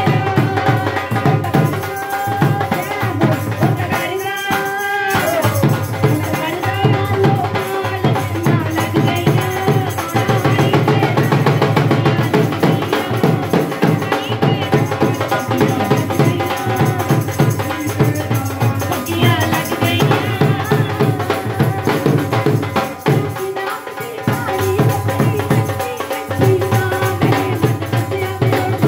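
Live devotional folk music: a fast, steady drum beat with jingling percussion over sustained held tones.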